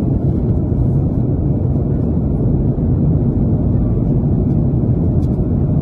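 Airliner cabin noise in flight: a steady, deep rush of engine and airflow noise that does not change.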